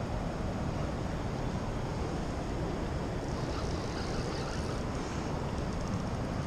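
Steady rushing noise of wind buffeting the microphone over fast-flowing river water, strongest in the low end, with a little more hiss about halfway through.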